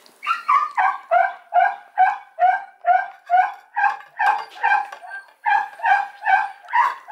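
A puppy crying in a rapid, even run of short pitched cries, about two to three a second, each falling in pitch, with a brief pause about five seconds in.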